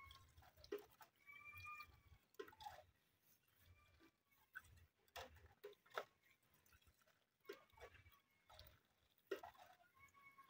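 Faint trickling, dripping and clicking as black tea is scooped up with a small cup and poured back into a metal pot, with a few faint short calls from birds nearby.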